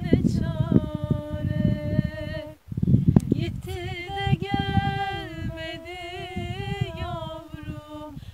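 A woman's voice singing long held notes that step up and down in pitch, with a short break about two and a half seconds in. Wind rumbles on the microphone underneath.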